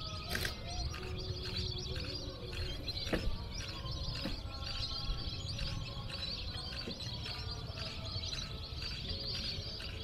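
Many birds chirping and calling together over the lake, short high calls overlapping throughout, over a steady low rumble.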